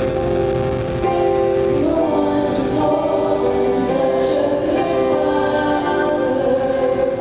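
A choir singing slowly, holding long chords that shift from one to the next.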